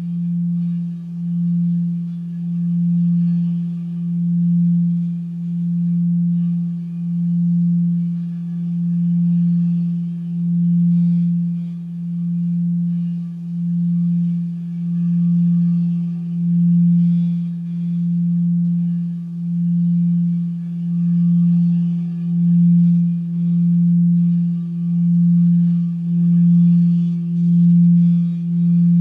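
White frosted quartz crystal singing bowl sung by rubbing a wand around its rim. It holds one low, steady tone that swells and fades in slow, even pulses about every second and a half, with no strikes.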